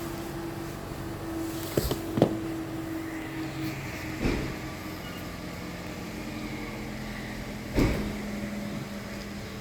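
Knocks and clunks from a hybrid battery pack being handled and fitted into place: a quick cluster about two seconds in, one about four seconds in and one near the end, over a steady hum.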